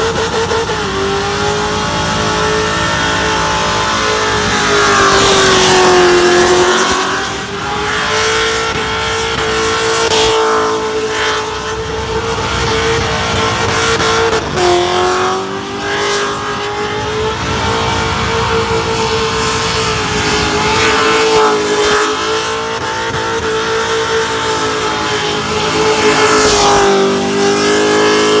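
Car engine held at high revs through a burnout, its pitch sagging and climbing back a few times, over the hiss of spinning tyres.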